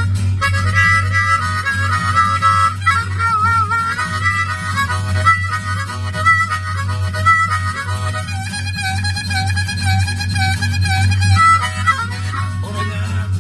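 Harmonica playing a melody solo, the held notes wavering with vibrato.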